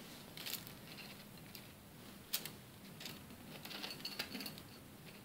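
Faint handling noises as deep-fried potato bread rolls are picked off a foil-lined plate and set into a glass dish: light taps against the glass and foil rustling, with a sharper click about two seconds in and a few more near the end.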